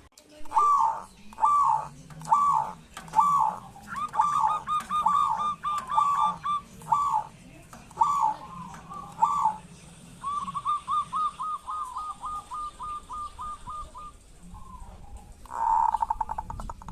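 Zebra doves (perkutut) calling: four loud separate coos about a second apart, then quick runs of short cooing notes, including one long even run of rapid notes, and a brief buzzing rattle near the end.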